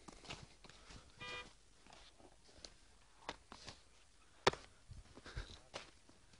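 Faint, irregular footsteps walking over snow, with a short beep-like tone about a second in.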